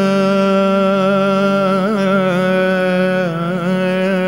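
Closing music: a single voice sings long held notes with small ornamental wavers in pitch, in an Indian vocal style, fading out at the very end.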